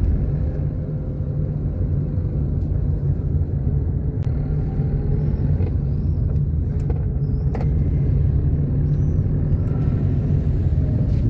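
Car interior road noise with the windows open: a steady low rumble of engine, tyres and rushing air while driving.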